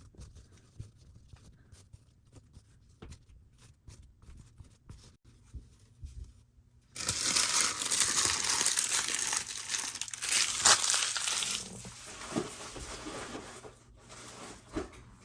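Plastic foil trading-card pack wrappers being handled and torn open: faint scattered clicks and rustles, then about seven seconds in a loud crinkling and tearing for about four seconds, fading to softer rustling.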